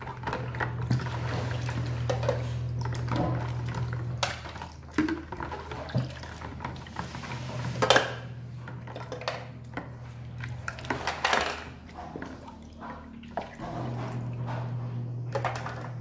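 Water splashing and sloshing in a plastic basin as plastic feeding-bottle parts are rinsed by hand, with plastic parts knocking and clattering now and then, loudest about 8 and 11 seconds in. A steady low hum comes and goes underneath.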